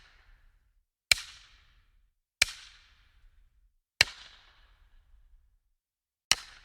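Bat hit sound effect: four sharp cracks at uneven spacing, each trailing off in a short fading ring.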